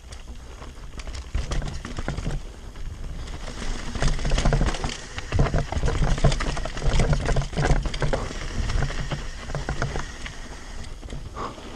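Devinci Spartan carbon enduro mountain bike descending a rocky dirt trail: tyres crunching and skittering over loose stones and roots, with a constant clatter of clicks and knocks from the bike over a low rumble. It gets louder and busier about four seconds in, over a stretch of scattered rocks.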